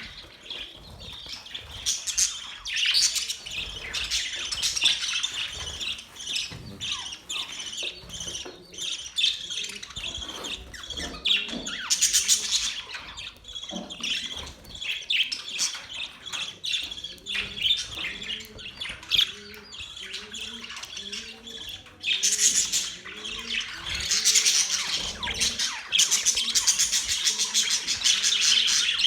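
Several budgerigars chirping and warbling in a continuous dense chatter, mixed with squawks. It grows louder briefly about twelve seconds in and again for the last several seconds.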